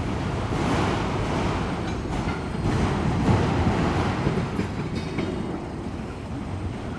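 Freight train cars rolling past on the track: a steady rumble of steel wheels on rail with irregular clacks.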